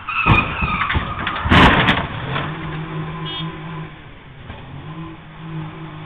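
A car's tyres squeal briefly, then a crash of impacts, loudest about a second and a half in, as the car hits and leaves the road. Its engine then keeps running with uneven revving.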